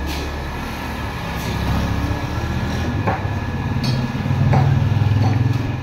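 A motor vehicle's engine running close by, a low steady rumble that grows louder about four seconds in and drops away near the end, with a few light clicks over it.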